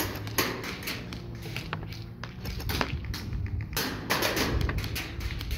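Airsoft guns firing: sharp shots at irregular intervals, coming thicker about four seconds in.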